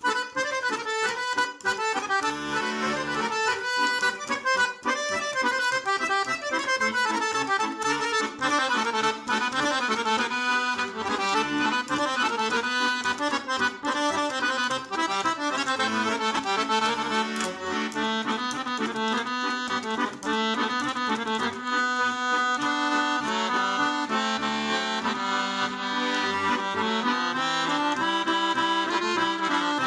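Instrumental background music with a busy melody, starting suddenly out of silence.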